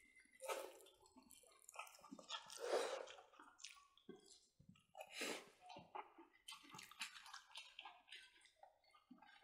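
Close-miked wet chewing and lip-smacking of people eating smoked pork ribs with their hands, in short irregular bursts, the loudest about three seconds in.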